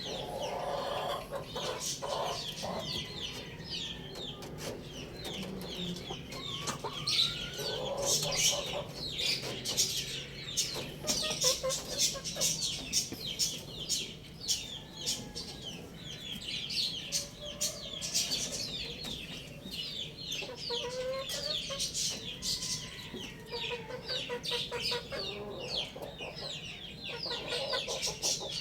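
Chickens clucking amid a constant flurry of short, high, falling chirps.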